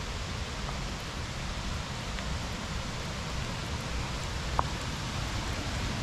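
Steady rushing hiss of the river and falls, an even wash of water noise with a low rumble beneath it. A single brief click about four and a half seconds in.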